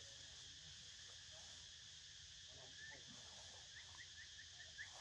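Quiet forest ambience: a steady high insect drone, with a quick series of short, high rising chirps, about three or four a second, starting about three seconds in.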